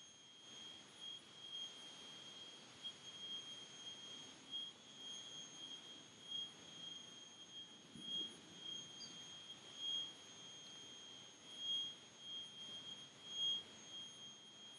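Faint steady high-pitched tone that swells slightly in strength every second or so, over quiet room hiss.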